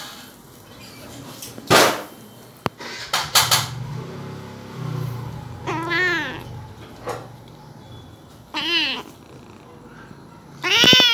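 Tabby kitten meowing three times, about six, nine and eleven seconds in, each call rising then falling in pitch; the last meow is the loudest. A couple of short sharp noises come earlier, before the first meow.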